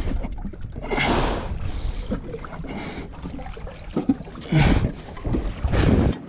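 Wind buffeting the camera microphone in gusts, over water washing against a small boat's hull, with the strongest gusts about a second in and again near the end.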